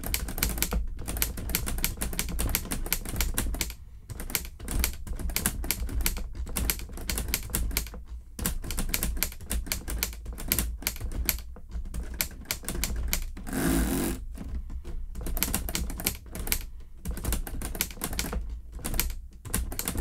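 LEGO Ideas Typewriter (set 21327) being typed on: its plastic brick keys and key mechanism clacking in quick runs of clicks with short pauses between. About fourteen seconds in there is a brief louder rushing noise lasting under a second.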